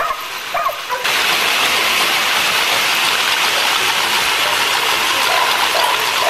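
A dog whines in short yelps for about the first second. Then a steady rushing rattle of a dog treadmill running fast under a pit bull terrier takes over abruptly, with faint whines again near the end.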